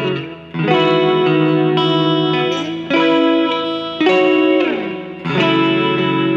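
Electric guitar, a Stratocaster with Seymour Duncan P-Rail pickups, playing ringing chords with a pick through a small NUX Mighty Lite amp that is miked up. The chords change every second or so, with a brief drop about half a second in and a chord sliding down in pitch around four and a half seconds in.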